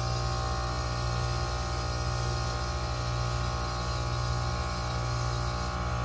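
Goodman 3.5-ton package heat pump running its defrost cycle: a steady low hum from the unit with a steady hiss above it.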